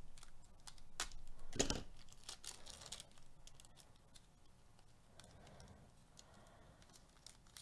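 A foil trading-card pack is torn open and the cards are slid out of the wrapper. There are a few sharp crinkles and clicks in the first three seconds, the loudest just under two seconds in, then softer rustling of the wrapper and cards.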